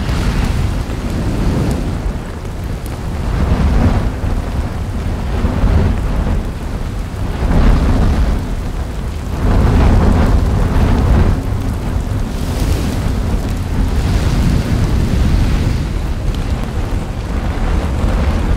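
Lava fountain of an erupting volcanic vent: a deep rumbling roar with crackling spatter, swelling and easing in surges.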